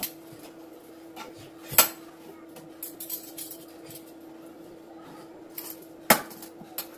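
Steel pots, pans and utensils clinking and knocking together as they are handled and lifted out of a kitchen cabinet, with the sharpest clanks about two seconds in and about six seconds in. A faint steady hum runs underneath.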